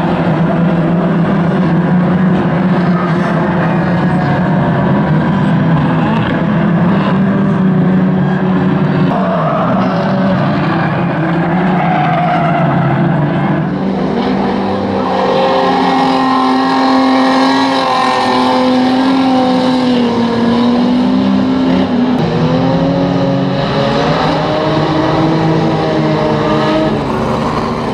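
Engines of several pre-1980 classic banger racing cars running hard at racing speed, their pitch rising and falling with revs from about halfway through.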